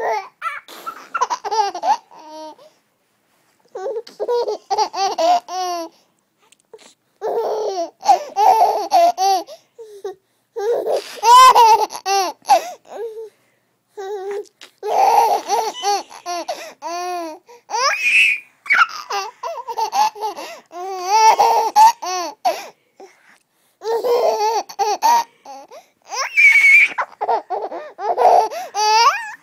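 A 10-month-old baby laughing in repeated bouts of giggles, separated by short pauses, with a couple of high squeals among them.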